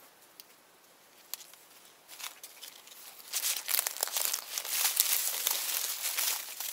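Dry leaves crackling and rustling as a puppy paws and mouths them: a few scattered crackles at first, then continuous crackling from about three seconds in.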